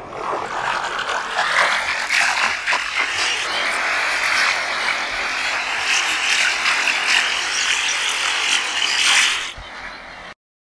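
Generative electronic sound built by a real-time program from recorded ocean-wave samples: a dense crackling hiss that rises in pitch over the first two seconds, then wavers slowly up and down. It drops away about nine seconds in and cuts off abruptly just before the end.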